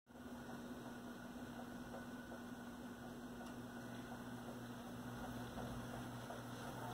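Faint, steady mains hum with a light hiss from a General Electric tube console's amplifier, switched on before the 78 rpm record starts playing.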